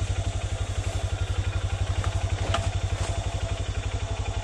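Honda CRF150L's single-cylinder four-stroke engine running at low revs as the bike creeps along a trail, with an even, rapid chug, about a dozen beats a second. A couple of light clicks sound about two seconds in.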